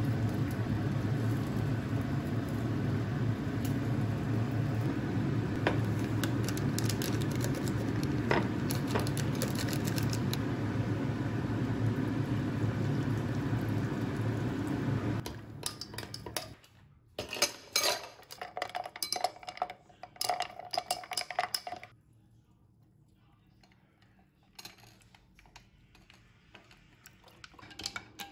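A steady low hum and hiss for about the first fifteen seconds, which then cuts off. After that, hot water is poured into a tall drinking glass, and a metal spoon stirs the drink, clinking and scraping against the glass in short bouts with a pause in between.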